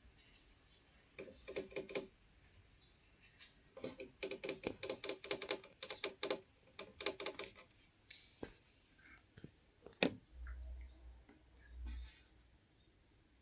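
Bursts of rapid clicking and rattling, one about a second in and a longer one from about four to seven and a half seconds in, followed by a single sharp knock about ten seconds in.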